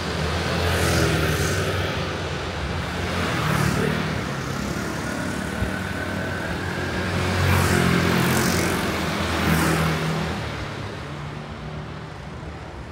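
Street traffic: cars and other motor vehicles passing close by, their engine noise swelling and fading several times, then dying down near the end.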